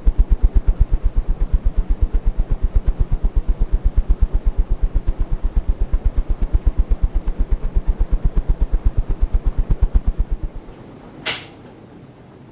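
Possini Vengeance ceiling fan's blades sweeping air across the microphone, a rhythmic low buffeting at about eight pulses a second that stops about ten and a half seconds in. A single sharp click follows near the end.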